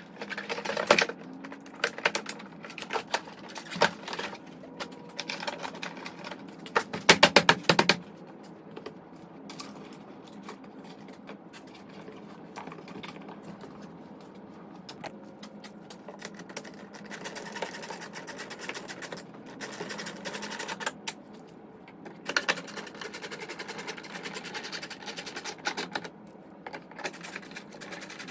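Hand-tool work on a truck's inside door panel: scattered clicks and knocks, with a dense run of rapid ratchet clicking about seven seconds in as the small 7mm bolt is worked, then softer scraping and clicking of parts being handled.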